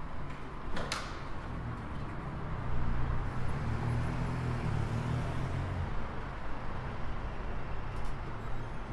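City street traffic: a van's engine running close by, loudest in the middle and fading after about six seconds. A sharp click sounds about a second in.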